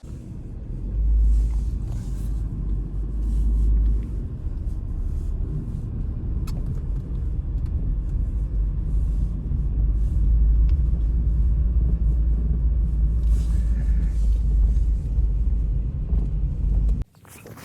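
Strong blizzard wind buffeting the microphone: a loud, deep, gusting rumble that starts and cuts off abruptly.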